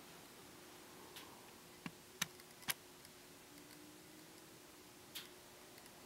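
Quiet room tone with a faint steady hum, broken by a handful of short, sharp clicks. The two sharpest come about half a second apart near the middle.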